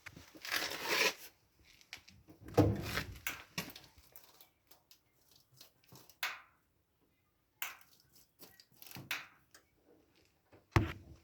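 Intermittent rustling and scraping from handling, with scattered clicks; the loudest stretch is about two and a half seconds in, and there is a sharp knock near the end.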